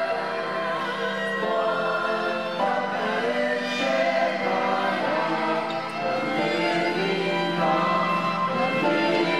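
Background choral music: voices singing held chords that change about every second.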